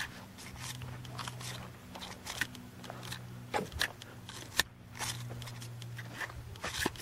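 Footsteps crunching on sandy dirt and loose gravel, irregular steps, over a faint steady low hum.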